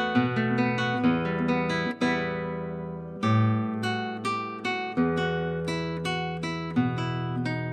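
Background music: an acoustic guitar playing a picked melody over bass notes, with one chord left ringing out about two seconds in.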